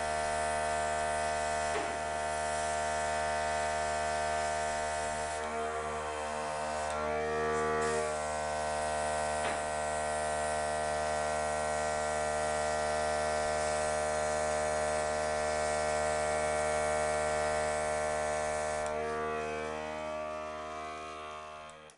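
Electric pet grooming clippers running steadily with a dense buzzing hum as they trim a poodle's coat, the tone shifting briefly twice as the blade works the fur. The sound fades out at the end.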